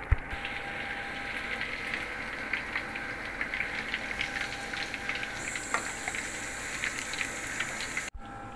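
Masala-coated fish pieces deep-frying in hot oil in a pan: a steady sizzle thick with small pops and crackles, which cuts off abruptly near the end.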